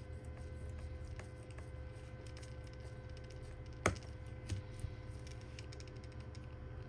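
Light clicks and taps of a smartphone and small repair tools being handled on a workbench, with one sharp click about four seconds in and a couple of softer ones just after, over a steady electrical hum.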